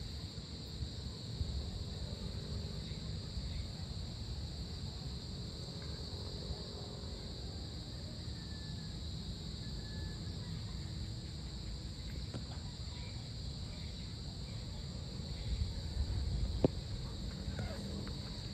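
Steady high-pitched evening chorus of crickets and other insects, over a low background rumble. A single sharp click comes near the end.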